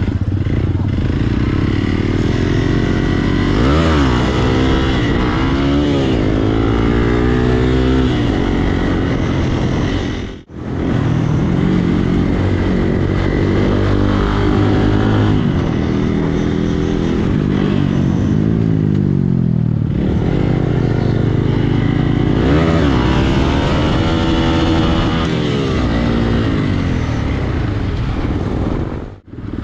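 A Hero XPulse dirt bike's single-cylinder engine being revved hard, its pitch climbing and falling again and again as the rider works the throttle over rough off-road ground. The sound drops out briefly twice.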